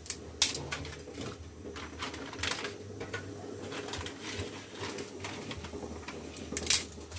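Blocks of dry rice vermicelli (bihon) and their plastic packet being handled over a pot: scattered crackles and crinkles, a few sharper snaps, over a low steady hum.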